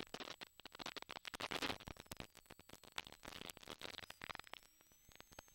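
Faint, irregular crackling and scattered clicks over near silence, with no engine sound.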